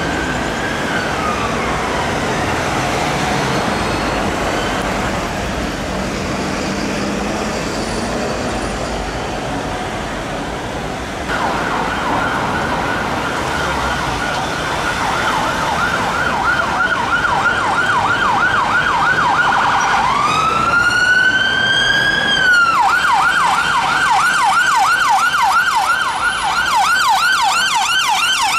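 Emergency vehicle siren over road traffic: a slow wail fades away at the start, then about eleven seconds in a fast yelp starts up, switches briefly to a slow rising wail about twenty seconds in, and goes back to the fast yelp, getting a little louder.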